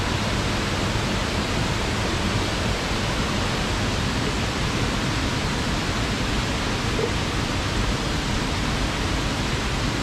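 Steady, even rush of a waterfall.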